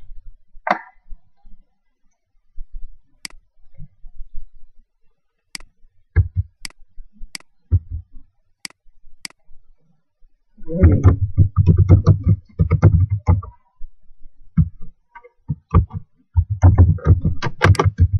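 Typing on an ASUS K54 laptop keyboard: two runs of rapid keystrokes with dull thumps in the second half, after a handful of separate sharp clicks spaced about half a second to a second apart.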